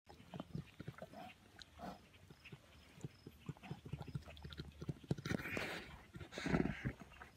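Syrian brown bear purring, a run of rapid, uneven low pulses, the sound of a bear that is content and enjoying play. Two louder breathy bursts come about five and six and a half seconds in.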